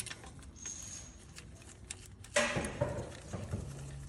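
Small clicks and scraping of metal parts as a timing chain tensioner is worked into place on a GM 3.6 L V6, with a louder scrape about two and a half seconds in.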